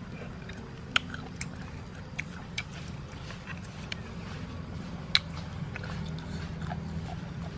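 Close-up eating sounds of cooked land snails: chewing and lip sucking broken by sharp clicks, the two loudest about a second in and about five seconds in.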